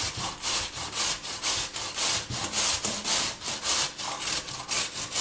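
Raw pumpkin being grated on the coarse side of a stainless steel box grater: a steady run of quick scraping strokes, about three a second.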